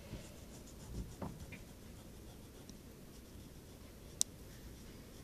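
Pencil lead scratching faintly on a sheet of paper in short drawing strokes, with one sharp click about four seconds in.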